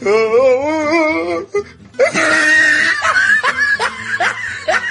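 Comedy soundtrack music: a voice holds a wavering note for about a second and a half, then, after a short break, a run of short rising laughs comes over the music.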